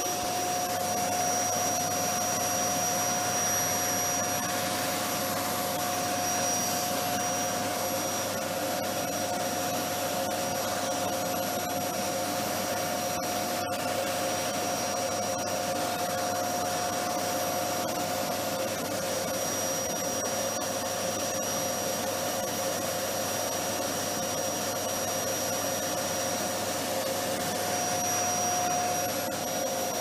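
Vacuum cleaner motor running steadily: an even rush of air with a steady whine in it. There is a momentary dip in the sound about halfway through.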